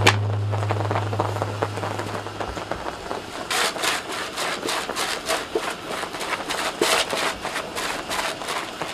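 A hand-twisted spice grinder grinding seasoning over a steak, heard as quick runs of gritty clicks from about three and a half seconds in. Before that, a low held note from the background music fades out.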